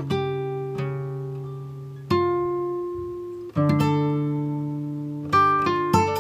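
Background music on acoustic guitar: chords plucked and left to ring out, a new chord every one to two seconds.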